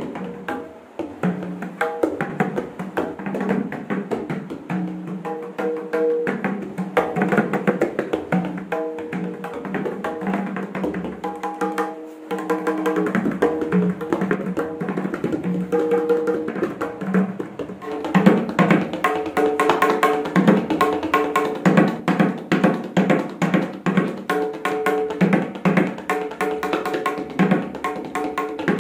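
A tabla pair played by hand: rapid strokes on the wooden right-hand drum and the metal left-hand bass drum. About two-thirds of the way through, the playing grows louder and denser.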